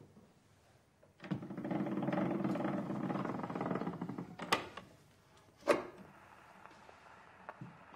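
A wooden desk drawer scraping as it is pulled, about three seconds of rubbing wood, then a click and a sharp knock about halfway through.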